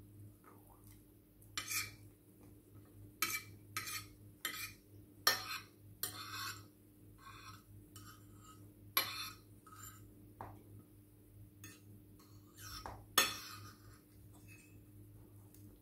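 Cutlery clinking and scraping against dishes: about a dozen irregular sharp knocks and short scrapes, over a faint steady low hum.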